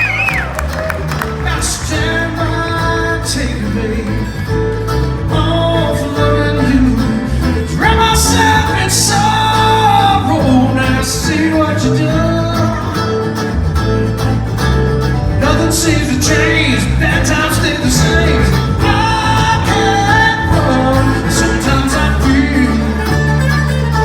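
Live bluegrass string band playing, with a melody line in the strings over a steady bass line.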